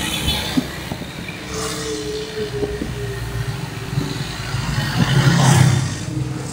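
Motorcycle running along a wet road, a steady engine drone with road noise. About five seconds in, an oncoming scooter swells louder and fades as it passes.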